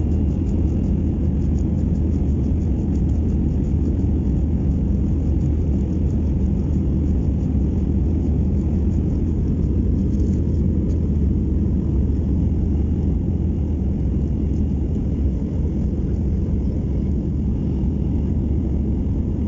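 Steady low rumble of an Airbus A319 airliner heard from inside the passenger cabin: engine and airflow noise holding even throughout.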